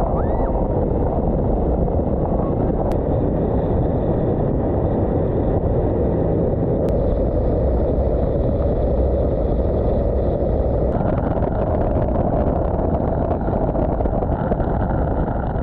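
Jet boat under way: a loud, steady rush of engine and water noise.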